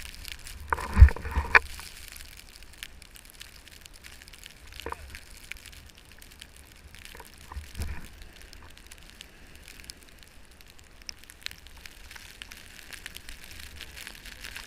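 Crunching and crackling in snow, with a cluster of loud knocks about a second in and another smaller knock near eight seconds.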